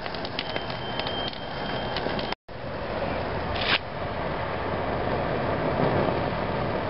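Gas torch flame running steadily while a polyurethane bushing burns, with crackling in the first couple of seconds. The sound cuts out completely for a moment a little over two seconds in.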